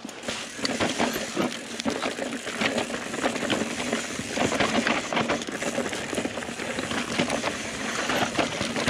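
Mountain bike clattering down a rocky trail: tyres rolling and scrabbling over loose rock, with a dense, irregular run of knocks and rattles from the bike on each hit.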